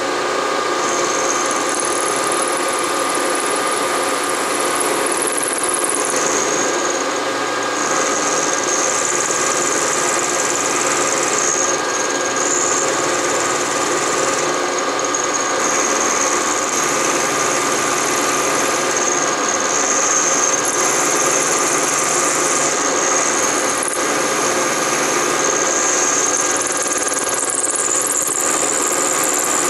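Bridgeport milling machine running, its end mill taking a roughing cut through a metal block, with a high-pitched cutter whine that comes and goes as the cut is fed along. It is the rough pass, leaving 50 thousandths for the finishing cut.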